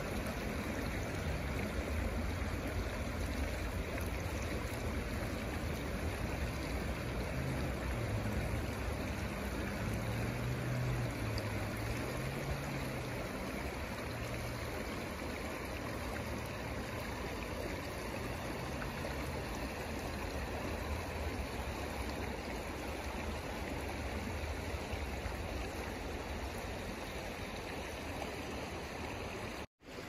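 A stream flowing, a steady rush of running water, broken by a split-second gap near the end.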